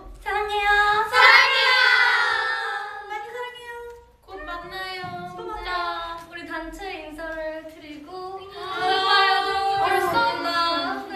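Several young women singing together in two long phrases, with held notes and a short break about four seconds in.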